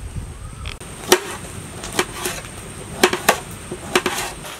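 A large knife slicing carrots on a steel plate, each cut ending in a sharp chop on the metal. About seven irregular chops begin about a second in.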